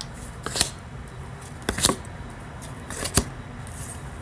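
Tarot cards being handled on a table: three short, sharp card snaps or slides about a second and a quarter apart.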